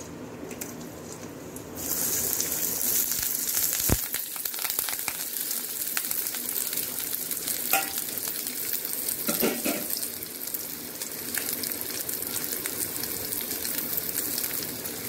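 Chopped onions and curry leaves hitting hot oil in a stainless steel pan and sizzling steadily from about two seconds in, with a single sharp knock a couple of seconds later.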